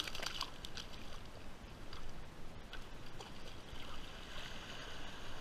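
Shallow water splashing in a quick cluster at the start, then a few light splashes and a hissy sloshing of water near the end, over a steady low rumble.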